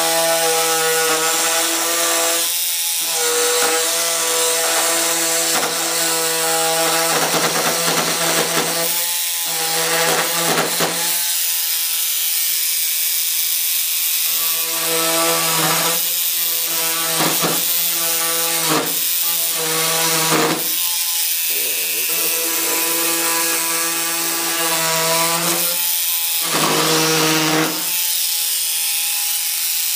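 Handheld rotary power tool cutting through the fiberglass nose of a model jet fuselage. The motor runs at a steady high note, and several times the note drops away briefly into a rougher grinding as the cutter bites.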